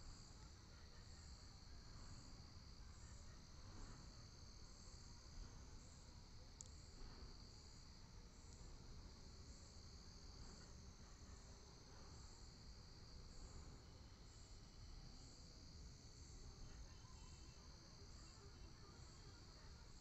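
Near silence, with a faint high-pitched chirring that pulses about once a second and the faint scratch of a graphite pencil going over lines on paper.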